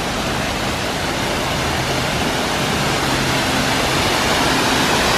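A man-made waterfall rushing down rockwork: a steady rush of falling water that grows a little louder toward the end.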